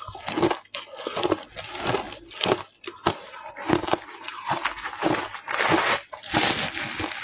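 Ice coated in matcha powder being crunched and chewed in the mouth: a run of crisp crunches, several a second, closer together in the second half.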